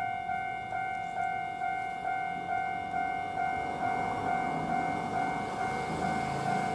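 Japanese railway level-crossing warning bell ringing in a steady, repeating ding, a little under three strikes a second. About halfway through, the rumble of an approaching train rises beneath it.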